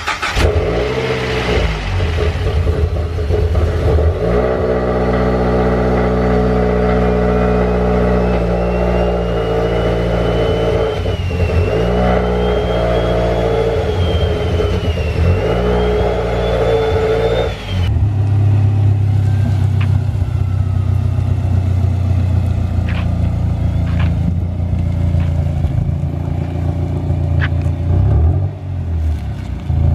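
Mazdaspeed3's turbocharged 2.3-litre four-cylinder, newly fitted with a Garrett GTX3076R turbo, running and being revved after its first start-up. A high whistle rises and falls with the revs through the middle of the stretch. The sound changes abruptly about eighteen seconds in, and a few sharp clicks follow.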